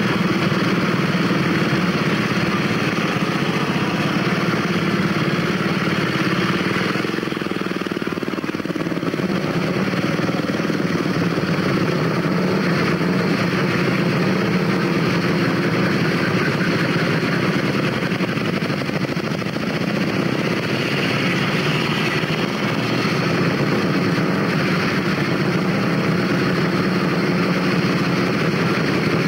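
Several vintage motorcycle engines running together, idling and pulling away, a steady engine din whose tone shifts about seven seconds in.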